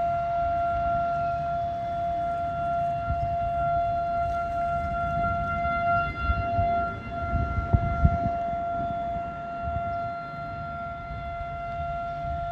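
Outdoor warning siren sounding a steady tone during a siren test, holding one pitch without rising or falling. A low rumble runs underneath, with a couple of thumps just past the middle.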